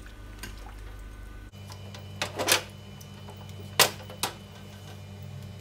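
Wooden spatula stirring chicken wings in sauce in a nonstick wok, giving four sharp clacks against the pan in the middle of the stretch, over a steady low hum.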